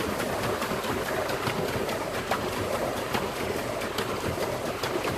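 Water churning and splashing from a pedal boat's paddle wheel being pedalled, steady throughout, with many small irregular clicks and knocks.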